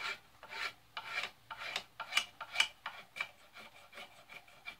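Spine of a knife blade scraping factory varnish off a wooden axe handle down to bare wood, in quick repeated strokes about two a second.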